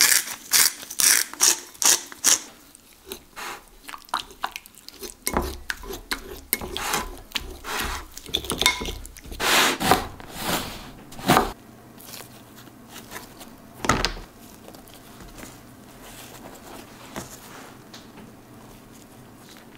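A salt mill grinding in quick clicks, then a long knife sawing through a crusty baguette on a wooden chopping board, the crust crackling with each cut. There is a single knock on the board later, and softer handling after it.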